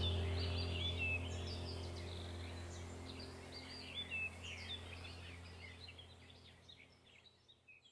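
Background track of chirping birdsong over a low steady hum, fading out gradually.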